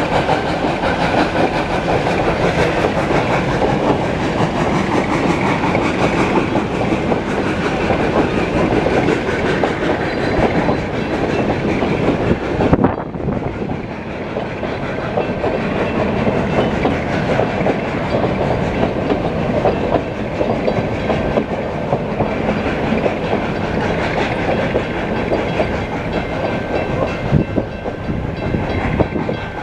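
Puffing Billy's NA class narrow-gauge steam locomotive 14A and its carriages passing over a level crossing, the wheels clicking over the rail joints. The crossing's warning bells keep ringing after the last carriage has gone.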